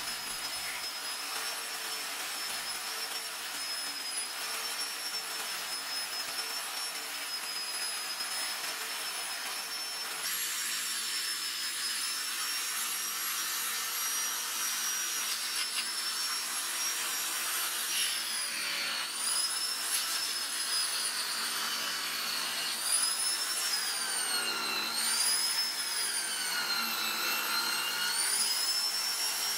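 Bench grinder motor whining high while its spinning wire and abrasive wheels scour rusty metal parts, with a steady scraping hiss. In the second half the whine sags in pitch and recovers several times, the wheel slowing each time the work is pressed against it.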